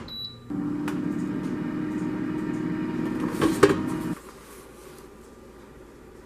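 Air fryer beeps once, then its fan runs with a steady whir for about three and a half seconds. A couple of knocks come near the end, and the whir then cuts off suddenly.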